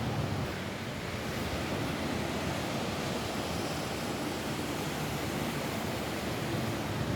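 Rain falling on a roof: a steady, dense hiss.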